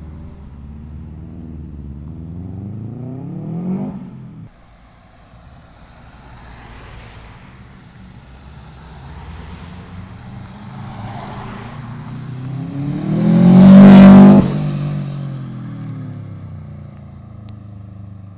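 Turbocharged Japanese cars accelerating hard past the listener. The first revs up in pitch and lifts off sharply about four seconds in with a short high chirp from the turbo. A second car builds up and passes loudly around two-thirds of the way through, with another brief turbo chirp as it lifts, then fades away.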